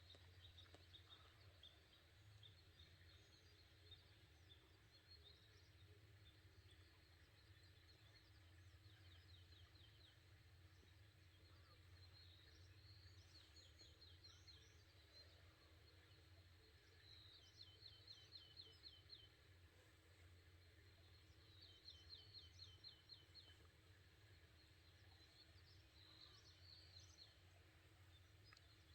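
Near silence, with faint songbird trills: short runs of rapid high notes every few seconds. Under them sits a faint, steady low rumble that the recordist takes for a wild boar snoring.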